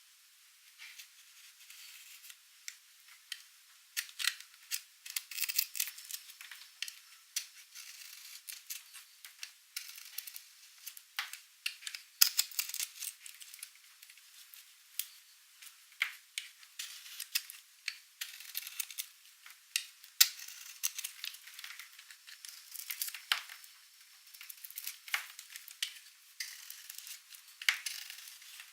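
Knife cutting through dry, painted bar soap: a continuous run of crisp, irregular crackles and snaps as the dry soap cracks under the blade, with sharper snaps every few seconds.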